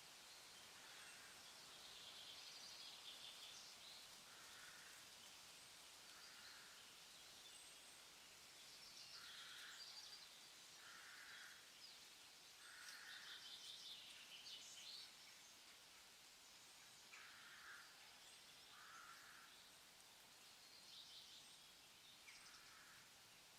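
Faint forest ambience with birds calling: a short call repeated every couple of seconds, and higher twittering phrases between, over a steady background hiss.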